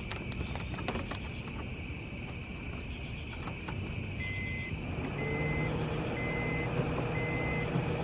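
Crickets chirping steadily at night, with a few light clicks in the first half. From about four seconds in, an electronic beep repeats about once a second, and a low hum builds from about five seconds.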